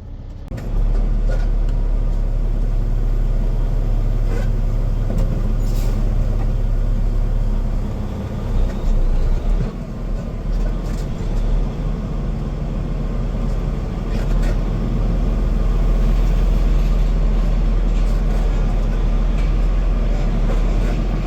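Heavy farm truck's diesel engine running steadily with a deep low hum just after being started, a few light clicks over it.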